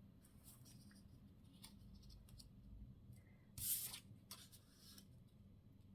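Paper being handled on a craft table: faint rustles and light scratches, with one short, louder rustling swish a little past halfway.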